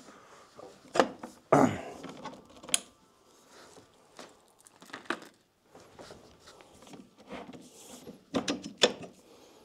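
Parts of a metal-framed side table knocked and clicked together during assembly: scattered sharp clacks and a thump, the loudest about a second and a half in, and a cluster of knocks near the end.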